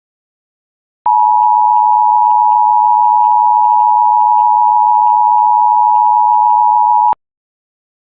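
Emergency alert attention signal: a loud, steady two-pitch tone just under 1 kHz that starts about a second in, holds for about six seconds and cuts off sharply.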